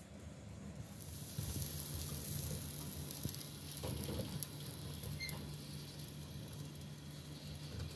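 Gas oven burner hissing steadily over a low hum, with a few light clicks and knocks from the metal baking tray being handled around the middle.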